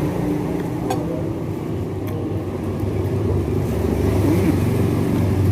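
Road traffic: the engines of passing vehicles running with a steady low rumble that grows louder about four seconds in.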